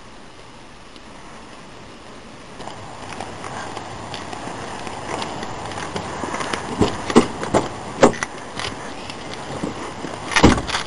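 A car door being opened and a passenger climbing in: rustling and a string of knocks, with one loud thump near the end.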